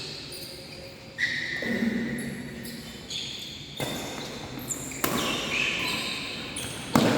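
Badminton rally: rackets sharply striking the shuttlecock four times, one to two seconds apart, with short high squeaks of court shoes between the hits, echoing in a large sports hall.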